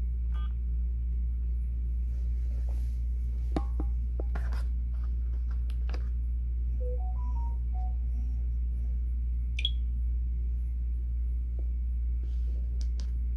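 Mobile phones being handled while being unlocked: a keypad beep from a feature phone's key press, a few sharp taps and clicks, a short run of brief electronic notes stepping up and down, and one high chirp. A steady low hum runs underneath throughout.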